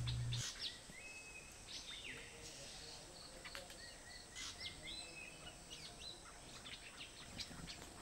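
Faint wild bird calls: scattered short chirps and whistles, a few briefly held notes and one falling whistle, over a steady high-pitched whine.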